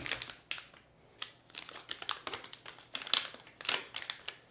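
A small clear plastic bag crinkling in the hands as it is handled, an irregular run of crackles that gets busier after about a second and a half.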